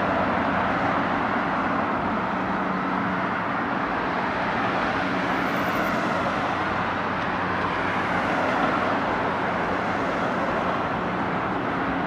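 Dyson DC65 upright vacuum cleaner running: a steady rush of air with a low motor hum underneath.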